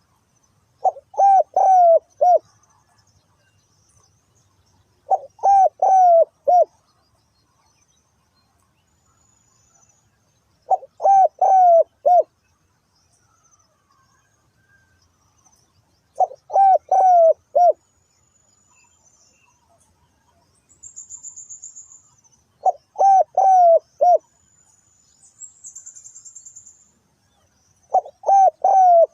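Spotted dove (tekukur) giving its cooing call: six phrases of about four quick notes each, repeated every five to six seconds. Faint high-pitched trills sound between the phrases.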